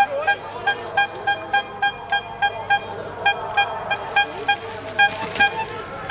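A horn tooting over and over in short beeps of the same pitch, about three a second, with a brief pause about halfway through.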